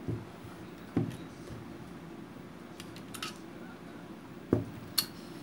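A plastic blender jar being handled and knocked: a few sharp knocks and clicks, the loudest about a second in and twice near the end, over a steady low hum.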